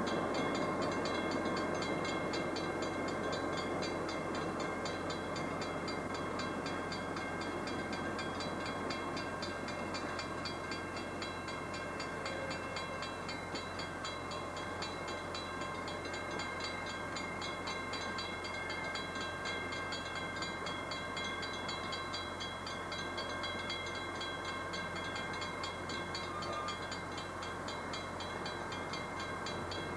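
Dinner train's stainless-steel passenger cars rolling past, a steady rumble and clatter of wheels on rail, a little louder in the first few seconds.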